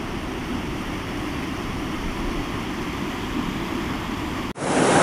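River current flowing over a shallow, stony bed: a steady rushing of water. About four and a half seconds in it cuts abruptly to a louder, brighter rush.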